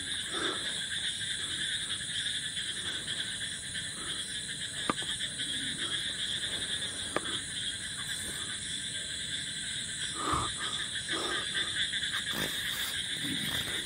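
Steady, high-pitched night-time chorus of calling animals, the dense drone of frogs and insects in woodland. A couple of faint clicks and a soft thump about ten seconds in come from handling or footsteps.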